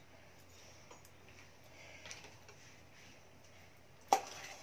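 Quiet, faint handling of cooked eggplant being pulled apart by hand in a stainless steel bowl, with a few soft ticks and one sharp tap about four seconds in.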